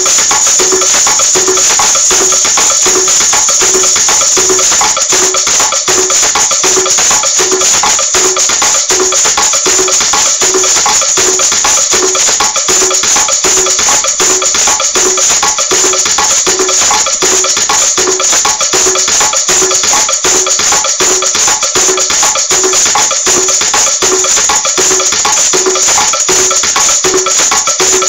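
A pair of maracas shaken continuously in a fast, steady rhythm, with a regular accented beat about twice a second.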